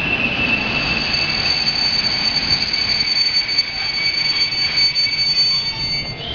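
Intercity passenger coaches rolling along the platform over a low rumble, with a steady high-pitched squeal from the running gear made of several tones at once.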